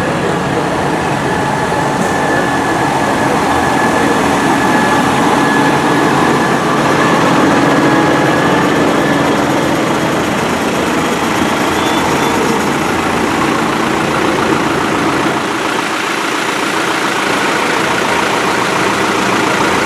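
Diesel engines of a column of farm tractors running steadily as they drive slowly past, including a modern Valtra, a red Fiat and a green Fendt. A thin steady high whine sounds over the engines in the first half.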